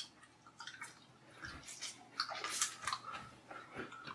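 Faint wet mouth noises close to a microphone: lips smacking and sucking in a string of small, irregular wet clicks.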